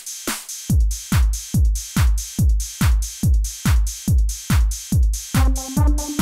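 Roland XPS-30 synthesizer playing an electronic dance drum pattern: a steady four-on-the-floor kick drum, about two and a half beats a second, with hi-hats. A held synth chord comes in near the end.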